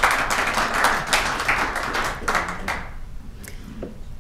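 Audience applauding, a dense run of hand claps that dies away about three seconds in.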